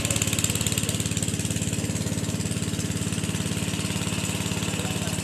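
Small gasoline engine running steadily at an even speed, with a fast regular pulse.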